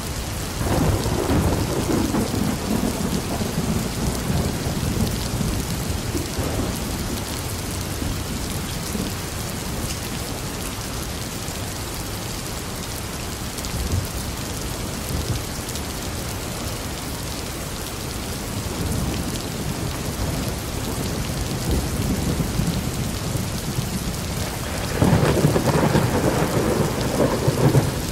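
Steady rain falling, with thunder. A low rumble rolls in about a second in and fades away over several seconds, and a second, louder rumble breaks near the end.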